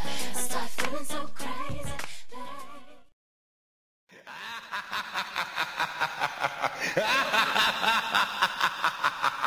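A dance song fades out over about three seconds and is followed by about a second of silence. Then another music track with voices and a steady beat begins.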